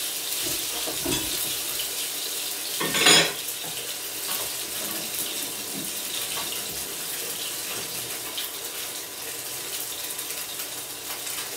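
Kitchen tap running into the sink as hands are washed under it, over the steady sizzle of sea bass fillets searing skin side down in a hot frying pan. One brief louder burst about three seconds in.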